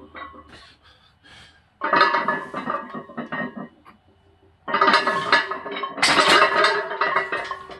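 Iron barbell plates clanking and rattling on the bar sleeves as a loaded squat bar moves through reps, in two bursts of metallic clinking with ringing.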